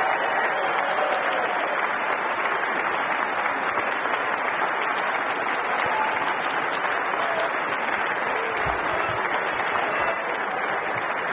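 Large arena crowd applauding steadily, a dense wash of clapping that holds at one level throughout.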